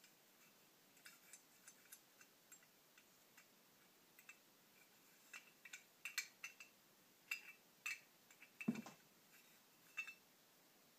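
Small metal carburetor parts clicking and tapping as they are handled and fitted by hand: light, irregular ticks that get louder and more frequent in the second half, with one duller knock about nine seconds in.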